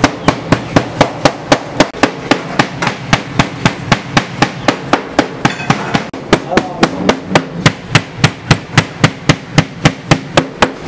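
Heavy knife chopping meat on a wooden board: steady, even strokes about four a second, as when kebab mince is chopped by hand.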